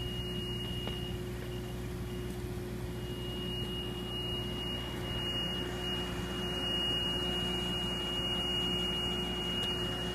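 Boom lift's engine running steadily as a low hum, under a thin, steady high-pitched electronic tone that fades for a second or so early on.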